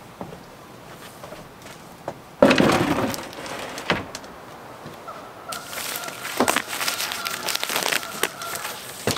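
A wooden countertop slab set down on sawhorses with a loud clatter about two and a half seconds in, then a clear plastic sheet crinkling and rustling as hands press it flat over the wooden countertop.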